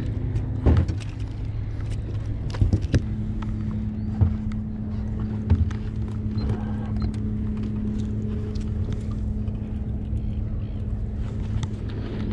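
A freshly caught snapper flapping and knocking on a boat's carpeted deck and being handled, a few dull knocks in the first half, over a steady low hum with a steady drone that comes in about three seconds in.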